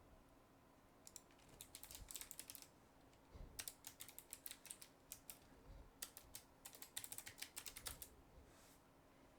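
Faint computer keyboard typing in three quick bursts of keystrokes, as domain sign-in details are entered.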